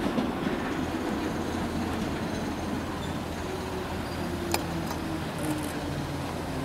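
London Underground D Stock electric train running slowly into the platform, a steady rumble of wheels on the rails with faint low tones under it and one sharp click about four and a half seconds in.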